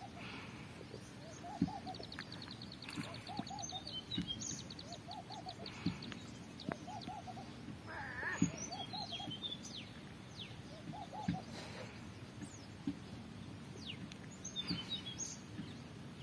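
Birds calling: a low call of three or four quick notes repeated every second or so, with higher chirps and a short rapid trill about two to four seconds in. A few soft taps are heard between the calls.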